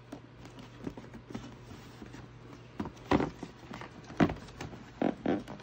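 Adidas Superstar sneakers handled on a cardboard shoebox, making irregular knocks, taps and rustles, a few louder bumps in the second half, over a faint low hum.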